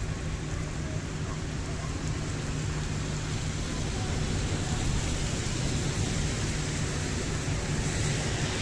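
Strong storm wind blowing across a phone's microphone, a steady low noise with a lighter hiss above it.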